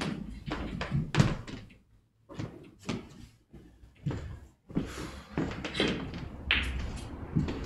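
A string of irregular sharp knocks and dull thumps, with a brief quiet gap about two seconds in.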